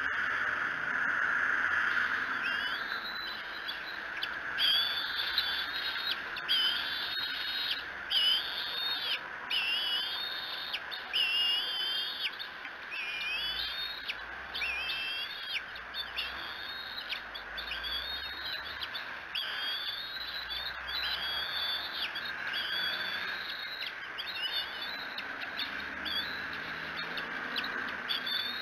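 Young bald eagles food-begging for a freshly delivered fish: a long string of high, whistled calls with sliding pitch, about one a second, starting a couple of seconds in. A steady hiss runs underneath.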